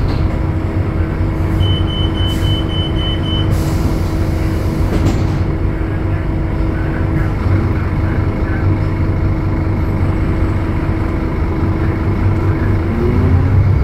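Scania DC09 five-cylinder diesel of a city bus running steadily, heard from inside the bus, with a low hum and a steady whine. A quick run of six high beeps comes about two seconds in. Near the end the engine note climbs and grows louder as the bus pulls away.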